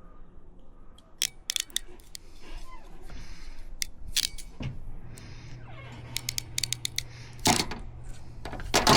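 Sharp clicks and snaps of hand tools and plastic MC4 solar connectors being worked on solar cable, in irregular groups, the loudest near the end. A steady low hum comes in about halfway.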